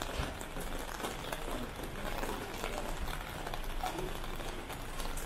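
Steady patter and hiss of rain on a busy city street.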